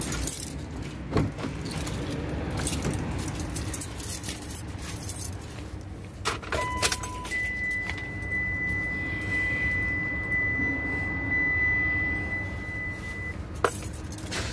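Car keys jangling and knocks from the driver's door as someone gets into a 2008 Mitsubishi Lancer EX, then the car's electronic warning chime: a short lower beep followed by a steady high tone held for about six seconds, which stops just before a click near the end.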